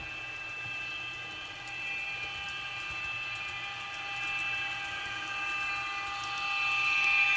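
Electric-mode sound from the DCC sound decoder of an N scale NJ Transit ALP-45DP model locomotive: a steady whine of several high tones from the electric traction sound, played through the model's tiny speaker. It grows louder near the end as the locomotive runs toward the microphone.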